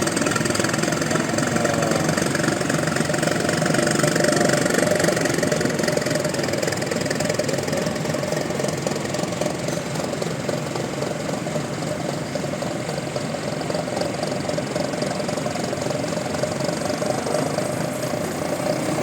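Bus engine running steadily through a snoring ('ngorok') exhaust, a continuous rumbling exhaust note.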